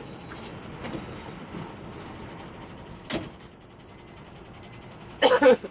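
Steady hum of a bus with a sharp click about three seconds in. A brief, close voice comes near the end.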